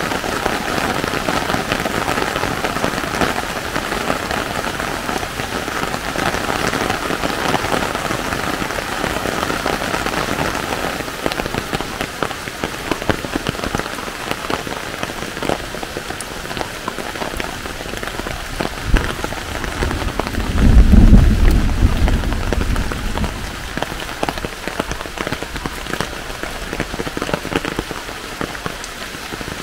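Steady rain falling, with many individual drops ticking close by. About two-thirds of the way in, a loud low rumble lasting around three seconds rises over the rain and fades.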